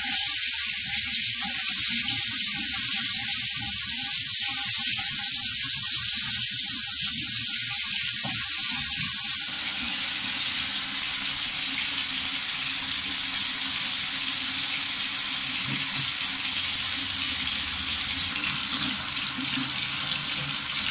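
Water running from newly installed bathroom sink taps into the basin, a loud steady hiss. About halfway through the sound fills out and grows fuller as the flow changes.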